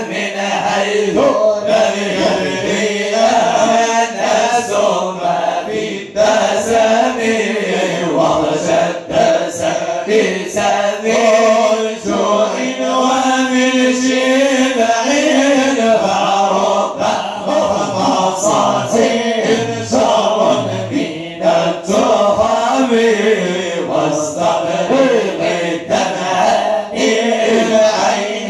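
A group of men chanting Moroccan religious praise songs (amdah) together into microphones, voices only with no instruments, the melody moving in long sung phrases.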